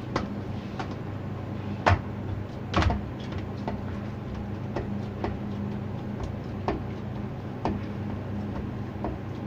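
Hands kneading ghee into stiff puri dough in a metal bowl: irregular knocks and thumps of the dough and knuckles pressing against the bowl, the loudest about two and three seconds in, over a steady low hum.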